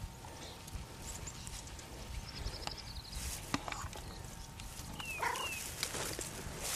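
A cat being stroked in dry grass: a faint low rumble, with light rustling and a couple of short, high, falling chirps about five seconds in.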